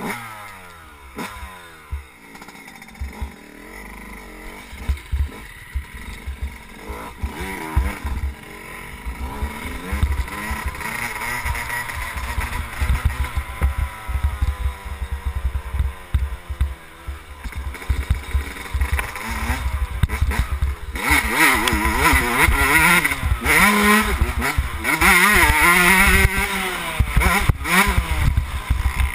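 2011 Yamaha YZ125 two-stroke dirt bike engine revving while riding, its pitch rising and falling again and again with the throttle and gear changes, getting louder and harder from about two-thirds of the way in.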